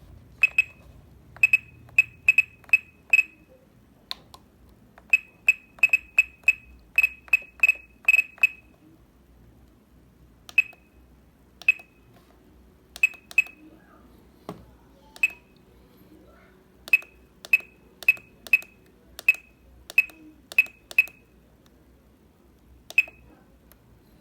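Radiomaster TX16S radio transmitter giving short, high key beeps from its speaker, in irregular runs of quick presses with pauses between, about thirty in all.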